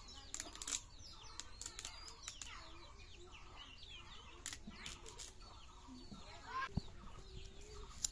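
Chickens clucking and peeping, with many short chirping calls, over scattered sharp clicks and scrapes as a carrot is scraped against the edge of a boti blade.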